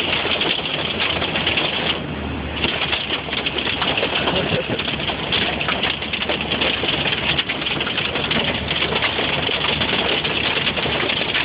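Hailstorm pelting a car's roof and windshield: a dense, steady clatter of many small impacts, heard from inside the car.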